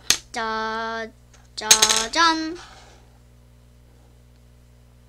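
A single sharp click, then a child's voice holding a steady sung note and, about two seconds in, calling out "짜잔!" (ta-da).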